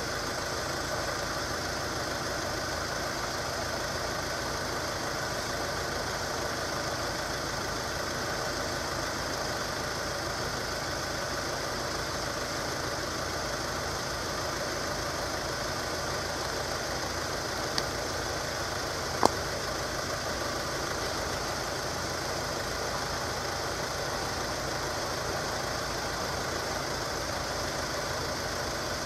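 Level crossing audible warning alarm sounding continuously while the crossing is closed to road traffic for an approaching train. It is interrupted by two short sharp clicks about 18 and 19 seconds in.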